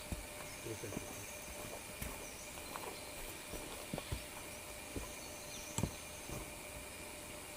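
Footsteps of two hikers walking on a dirt forest trail: irregular soft thuds, one of them the loudest about six seconds in. A steady high-pitched drone runs underneath.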